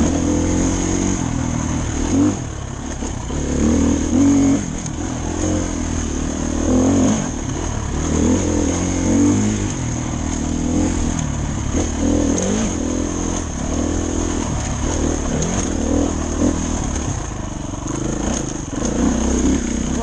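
Dirt bike engine running while being ridden, its pitch rising and falling over and over as the throttle is opened and rolled off.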